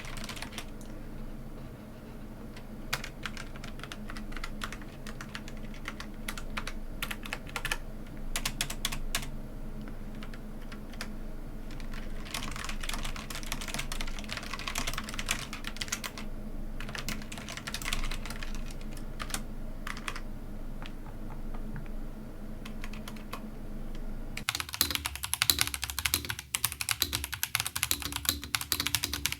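Typing on a Logitech G815 low-profile mechanical keyboard, a steady run of fairly soft keystrokes. About 24 seconds in it changes to typing on an Ajazz AKC087 mechanical keyboard, with louder, sharper clicks.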